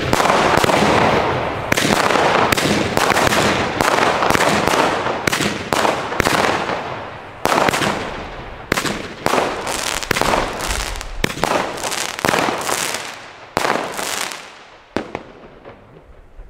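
Weco Red Star 3 firework battery firing: a fast series of shots and bursts over a dense hiss, coming thick at first, then more spaced out, with the last shots about fourteen seconds in.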